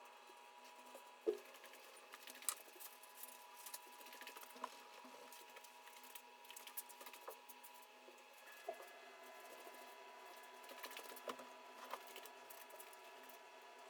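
Quiet room tone with a faint steady electrical hum and scattered small clicks and taps, the sharpest about a second in.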